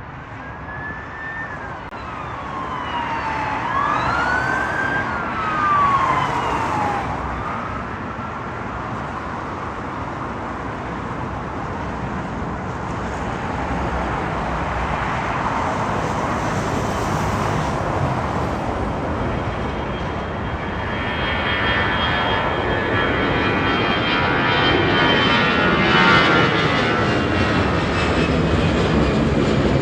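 Aircraft engines running at an airfield, with a turbine whine gliding up and down in pitch in the first several seconds. From about two-thirds of the way in, an aircraft's engine noise builds into a louder rumble with a whine that slowly falls in pitch.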